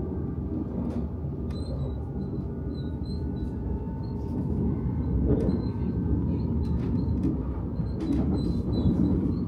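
Commuter train running along the track, heard from on board: a steady low rumble of wheels on rail with scattered brief high squeaks and a few clicks, growing a little louder about halfway.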